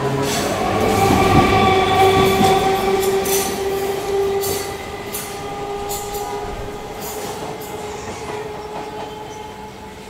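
A train running on rails, with a drawn-out steady tone over clattering and clicks, fading away.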